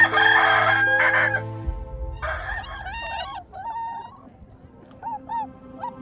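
A rooster crows once, loud and harsh, over about the first second and a half. Shorter, quieter bird calls follow.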